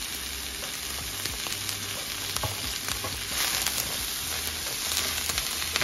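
Sliced onions and mushrooms sizzling in olive oil in a frying pan, stirred with a wooden spoon. The sizzle grows louder about three seconds in, when the stirring gets going, with occasional light taps of the spoon.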